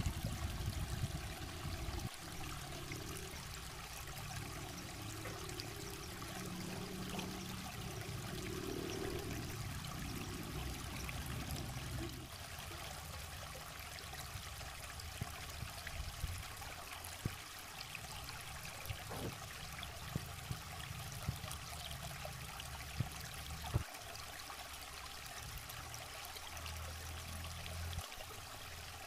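Shallow stream running over rocks, a steady trickle of water, with a few faint clicks.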